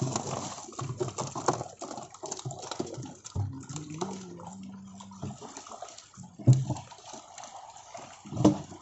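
Muddy water splashing and sloshing as catfish thrash in a crowded netted pond and men wade through it, with two loud sharp splashes about six and a half and eight and a half seconds in.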